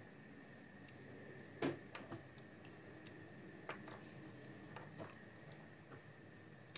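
Soaked almonds being popped out of their skins by hand, with small wet squishes and a scattering of light clicks as the peeled nuts are set down on a plate, about half a dozen at irregular intervals.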